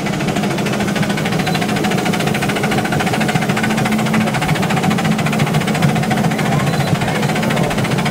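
Ride-on miniature live-steam train running, heard from one of its passenger cars: a fast, even mechanical rhythm over a steady rumble.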